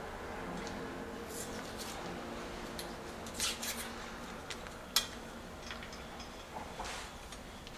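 Masking tape being pulled off its roll in short rips and torn, with a sharp click about five seconds in, as it is wrapped around a steel bicycle frame tube.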